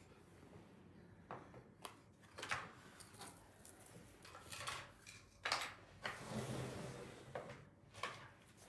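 Handling noise: scattered light clicks and taps, with a brief rustle about six seconds in, as small objects are picked up and put down.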